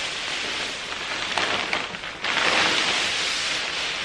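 Dry powdered meal pouring from a plastic bag into a plastic tote: a steady hiss of falling grains that dips briefly and then grows louder about two seconds in.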